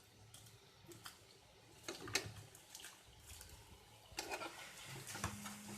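Faint sizzling and a spatula scraping through sauced momo filling in a frying pan: a few scrapes about two seconds in, then more steady stirring and sizzling from about four seconds. The filling is being fried a little longer because it is still wet from the sauce.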